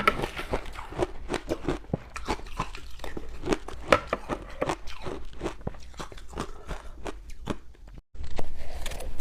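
Ice being bitten and chewed close to the microphone: a dense run of sharp, irregular crunches and cracks. The sound drops out for a moment about eight seconds in, then the crunching comes back louder.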